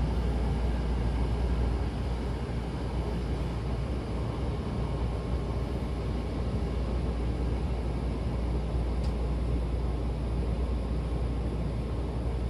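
Hankyu Takarazuka Line train running, a steady low rumble of wheels and running gear heard inside the car by the doors.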